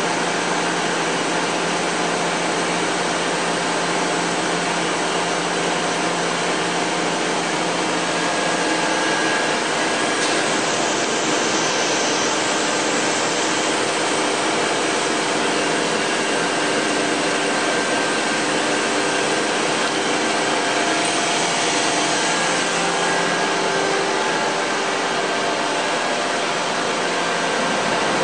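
Powered-up Mazak 510C vertical machining center running: a steady mechanical whir and hum with a few faint steady tones underneath.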